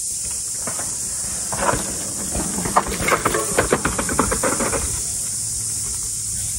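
A mountain bike going past on a dirt downhill track: about three seconds of tyre noise on dirt with rapid clattering from the bike, over a steady high hiss.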